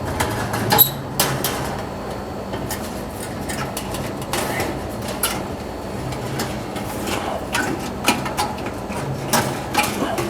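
Dryer heater-assembly parts and retaining clips being forced back into alignment by hand: irregular clicks, knocks and rattles, loudest about a second in and again near the end.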